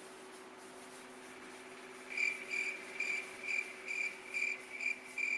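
Cricket chirping, a regular chirp about twice a second that starts about two seconds in, over a faint steady hum.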